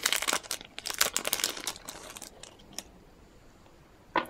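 Foil trading-card pack wrapper crinkling and tearing as it is opened, dense crackling for about two seconds that then dies away, with a single sharp click near the end.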